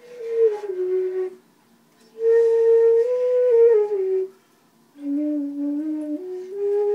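Long flute played in three short, breathy phrases. The first two hold a note and slide down, and the third starts low and steps up to a held note.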